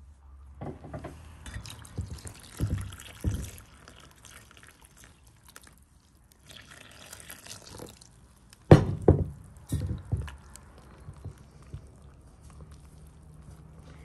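Liquid poured in splashes into a bowl of flour, then a bare hand mixing the wet flour into dough. There are a few sharp knocks and wet slaps, the loudest a little before the middle and about nine seconds in.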